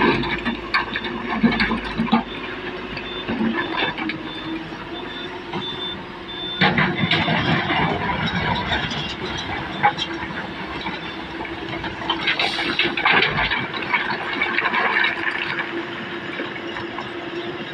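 Komatsu excavator's diesel engine running under load while loading quarried rock, with stones clattering and thudding against the steel bed of a dump truck; the heaviest thuds come about six and a half, ten and twelve and a half seconds in.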